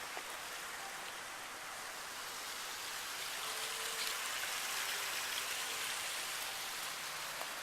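Water falling and splashing steadily down a boulder-built landscape waterfall, a constant rushing sound.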